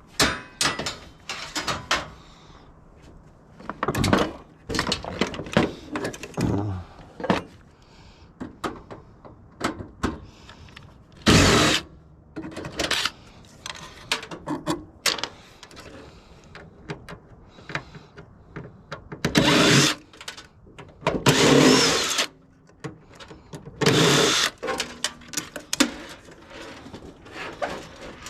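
Clatter and knocks of metal parts and hand tools as a water heater is taken apart for scrap, with a few short, louder noisy bursts.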